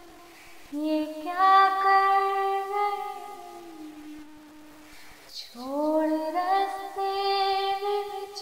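Song music: a melody of long held notes in two phrases. Each phrase slides up into its first note, one about a second in and the other about five and a half seconds in.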